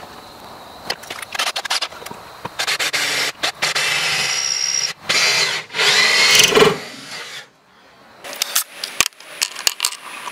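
Electric drill boring into steel with a cheap twist bit, running in several spurts with short stops between and a thin high whine partway through; the dull bit is struggling to cut.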